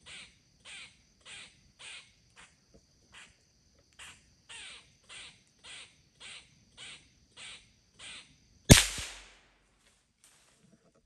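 A squirrel barking in the trees: a long run of short, evenly spaced alarm barks, a little under two a second. Near the end a single loud gunshot cracks and echoes away.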